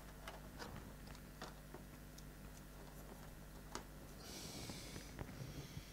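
Faint scattered clicks and knocks as an aftermarket exhaust silencer is worked onto a motorcycle's link pipe and mounting bracket. The loudest knock comes just before the four-second mark. It is followed by a short scraping hiss, about a second long, as the silencer slides into place.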